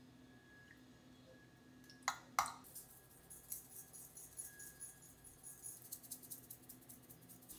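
A wooden spoon stirring thick plain yogurt in a glass Anchor Hocking measuring cup: rapid small clicks and scrapes of the spoon against the glass, with soft squelching of the yogurt. Two sharp knocks come about two seconds in, before the stirring starts.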